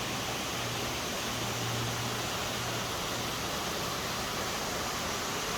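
Steady rushing of water from a waterfall, an even, unbroken noise.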